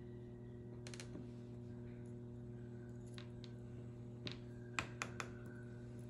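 Small metallic clicks and taps of tweezers working pins out of a brass lock cylinder: a few spaced clicks, then three quick ones near the end, over a steady low hum.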